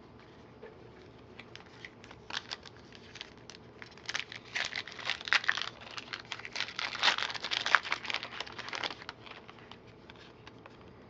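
Plastic wrapper of a football trading-card pack crinkling as it is opened and handled: scattered crackles at first, then about five seconds of dense crinkling that dies away near the end.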